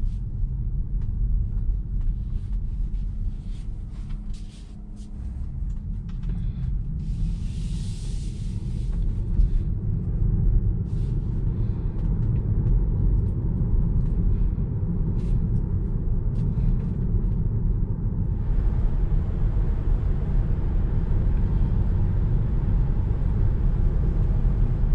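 Road and tyre noise inside the cabin of a 2021 Tesla Model 3 on the move, with no engine sound: a steady low rumble that grows louder as the car gathers speed. A wider hiss joins about eighteen seconds in. This is the cabin before any extra weather seals are fitted, reading about 60 to 63 dB at 50 mph.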